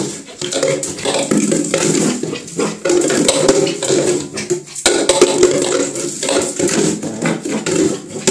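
Plastic bottle being batted and mouthed by a corgi puppy in a dry bathtub, clattering and scraping against the tub in quick, rapid knocks, with a short pause about five seconds in.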